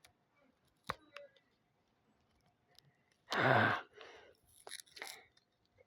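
A person's sigh, one breathy exhale about three and a half seconds in, in frustration at a Lego sticker that must be peeled off and reapplied. A sharp click about a second in and a few faint ticks and scrapes after the sigh.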